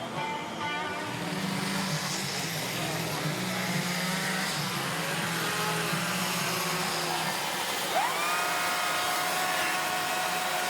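Several chainsaws running at once, idling and cutting. About eight seconds in, one revs up sharply and holds at full throttle.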